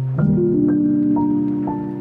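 Background music with soft sustained chords; a new chord comes in just after the start.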